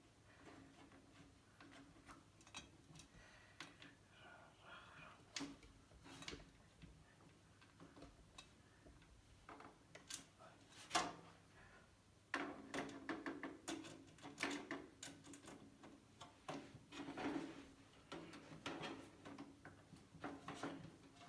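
Light clicks and taps of computer hardware being handled, with one sharper knock about eleven seconds in and busier handling noise after it.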